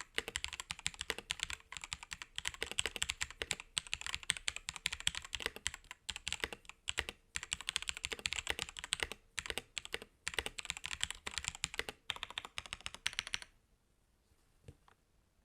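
Fast typing on an Attack Shark K86 mechanical keyboard: a dense, uneven run of key clicks with short pauses, stopping about two seconds before the end.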